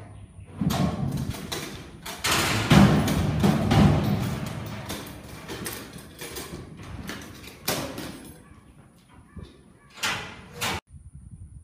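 Steel bucking chute gate swinging open with metal clanging and rattling, then a young bucking bull bucking out, its hooves thudding in the arena dirt. Two short bursts of metal banging come near the end.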